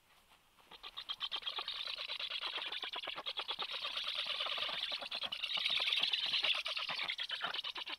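Black stork nestlings begging for food as a parent lands at the nest: a fast, continuous run of pulsed, raspy calls that starts about a second in and grows louder.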